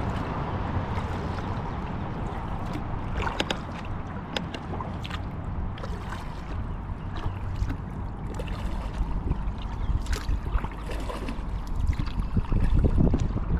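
Water splashing and dripping around a kayak moving along a slow river, with scattered small drips and splashes over a steady low rumble that grows louder near the end.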